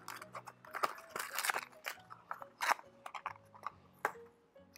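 Foil wrapper crinkling and a cardboard blind box rustling as hands pull the foil packet out of the box. The sound is a run of sharp crackles, the loudest about two and a half seconds in.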